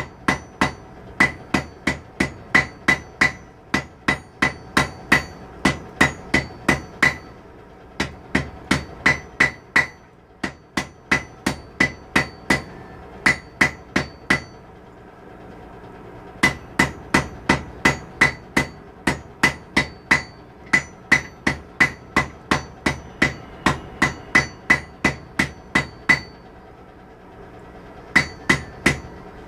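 Blacksmith's hammer striking hot steel on an anvil while forging tongs: quick, even ringing blows, about two to three a second, in several runs broken by short pauses.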